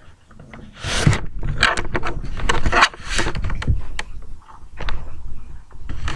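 Handling noise from the recording device being picked up and carried: a rapid run of knocks, clicks and rustling scrapes.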